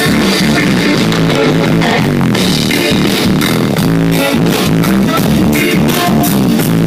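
A live reggae band playing loudly: bass guitar, guitar and drum kit on a steady beat.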